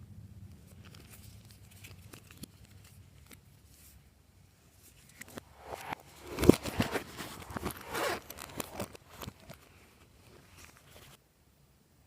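Glossy slime being worked and squished by hand, with sticky crackling and clicking. It starts faint, grows loud and dense about halfway through, then fades and stops shortly before the end.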